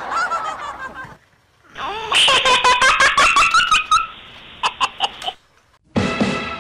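A young child laughing in a quick run of high giggles for about two seconds, starting about two seconds in, followed by a few short sharp sounds.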